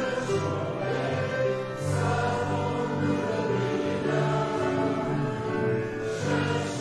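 A choir singing gospel music in long held notes.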